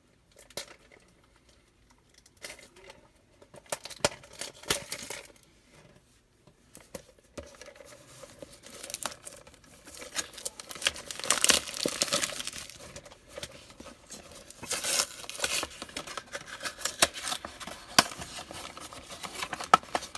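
A Funko Mystery Mini box being opened by hand: packaging tearing and crinkling in irregular bursts. It starts sparse and gets busier and louder about halfway through.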